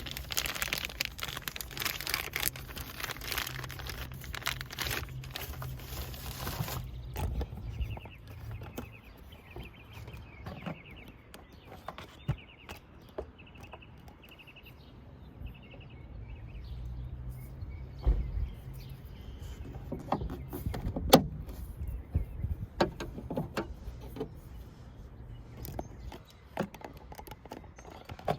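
Hands fitting a new gas strut to a car's trunk lid: rustling of packaging for the first several seconds, then scattered clicks and clinks of parts and tools, with one sharp click about 21 seconds in. A steady low hum and faint bird chirps sit underneath.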